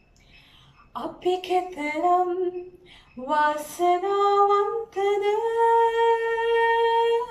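A woman singing a Sinhala song solo, with no accompaniment heard. She starts about a second in, breaks briefly near three seconds, then climbs in pitch into one long held note.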